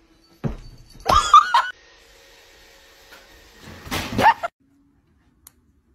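Two short pitched cries from an animal or person, one a little after a second in with a wavering pitch and one about four seconds in, with a thump just before the first.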